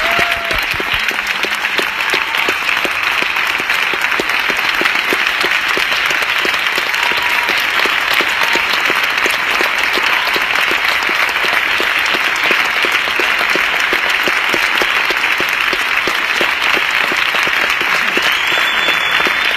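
Audience applauding, a steady, sustained ovation at the end of a live song.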